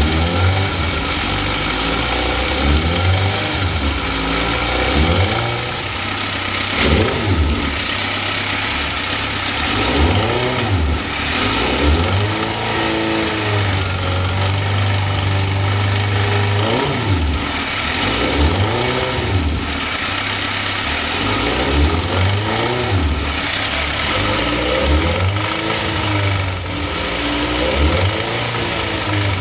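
2004 Suzuki GSX-R1000's inline-four engine being revved repeatedly, the revs rising and falling every couple of seconds and held higher for a few seconds midway. A little rattle or popping comes in once the engine is warm and above about 3,000–4,000 rpm; the owner is unsure whether it comes from the lifters, the engine or the timing.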